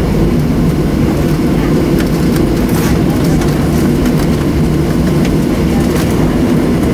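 Steady cabin rumble of a Boeing 737-700 after landing, its CFM56-7B jet engines and airframe heard from inside the cabin. It is an even, low noise with a few faint ticks a couple of seconds in.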